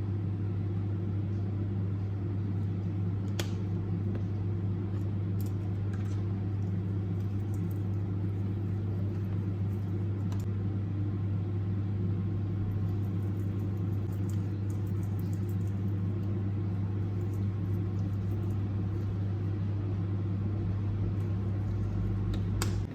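Steady electrical hum of a running household appliance motor, with a few faint ticks.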